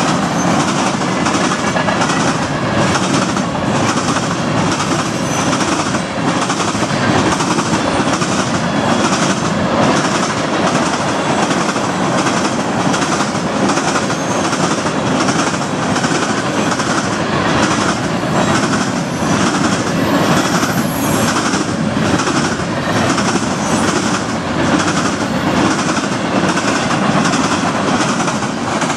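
Freight train's tank cars and hopper cars rolling past at speed, steel wheels clicking over the track in a steady rhythm under a constant rumble and rattle of the cars.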